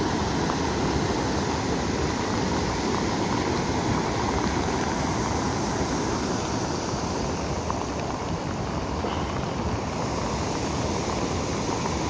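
Heavy rain and floodwater rushing over a street: a steady, unbroken rushing noise.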